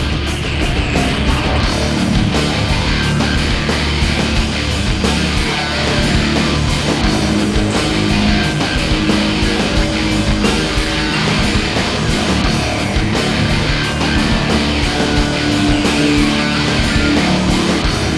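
Loud rock music with distorted electric guitar and drums, playing continuously.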